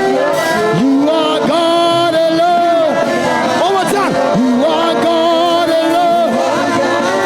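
Live gospel worship music: a singer's long held notes that bend and glide, over instrumental backing.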